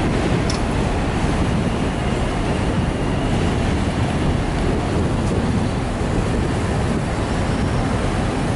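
R160 subway train running in along the elevated track toward the platform, a steady rumble of wheels on rails. A faint high whine sounds for a couple of seconds, starting about a second and a half in.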